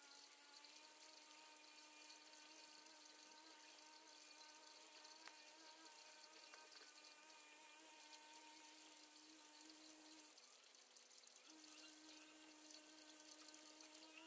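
Near silence: a faint steady hum that drops out for about a second late on, over a faint hiss.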